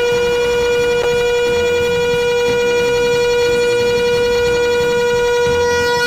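A steady, siren-like electronic tone with many overtones, held at one pitch without wavering, played loud through a large party sound system.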